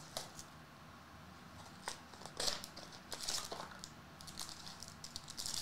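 A trading-card box being opened by hand and its foil-wrapped pack handled: faint, scattered crinkles and rustles of foil and cardboard, busiest from about two and a half seconds in.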